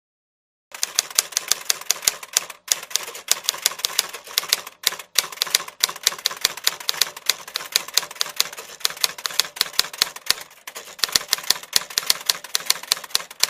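Rapid typewriter key clicks, several a second, with a few short pauses, then stopping abruptly just after the end.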